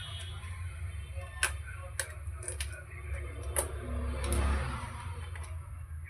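Scattered sharp clicks and a short scraping from a screwdriver and fingers working the plastic bottom case of an ASUS R558U laptop while its base panel is being unscrewed and pried, over a steady low hum.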